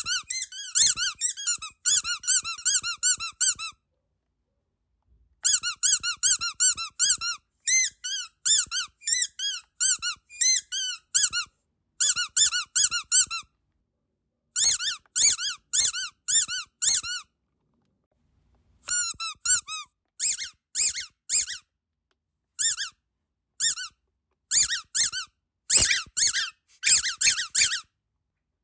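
Rubber duck squeaky dog toy squeezed rapidly and repeatedly, giving quick runs of short high-pitched squeaks that bend in pitch, in bursts with brief pauses between them, and two longer pauses about four seconds in and near the middle.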